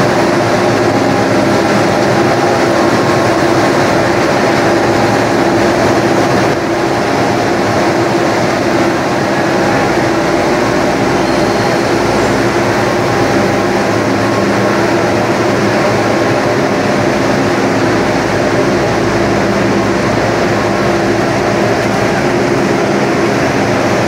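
Aluminium rod casting-and-rolling line running: a loud, steady machine noise with a constant hum of several tones, easing slightly about six seconds in.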